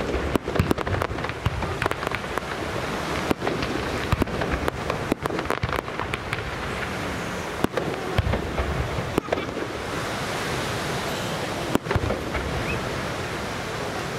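Fireworks display: shells bursting in a quick run of sharp bangs and crackles for the first several seconds, thinning to a few single bangs, over a steady rushing background noise.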